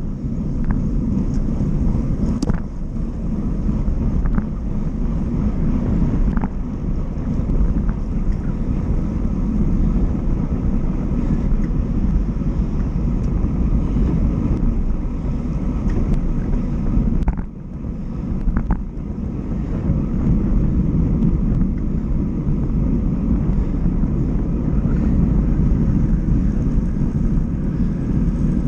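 Wind rushing over a handlebar-mounted camera's microphone on a road bike at riding speed, mixed with tyre and road rumble, with a few light clicks. The noise drops briefly about seventeen seconds in.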